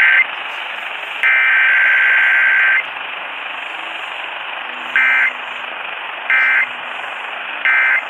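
Emergency Alert System digital data bursts, the harsh buzzy squawks, played through a Sangean HDR-14 radio's speaker over steady AM static hiss. A long burst of about a second and a half comes about a second in, followed by three short bursts about a second and a half apart.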